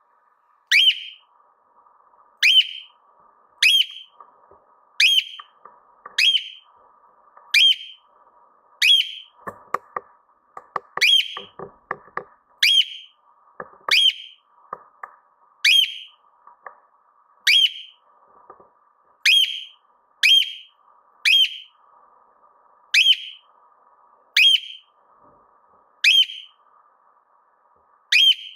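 Cockatiel calling over and over: a short, sharp call sweeping down in pitch, repeated steadily about every second and a half. A short run of clicks or taps comes about ten to twelve seconds in.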